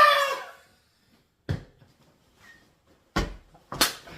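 Three short, dull knocks: one about a second and a half in, then two close together near the end.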